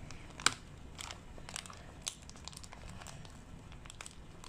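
Hands working slime in a plastic toy container: faint crackling and scattered small clicks, with one sharper click about half a second in.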